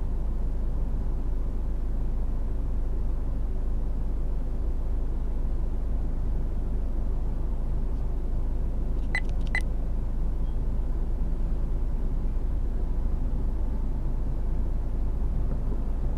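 Steady road and engine rumble heard from inside a moving car, with two short high beeps in quick succession about nine seconds in.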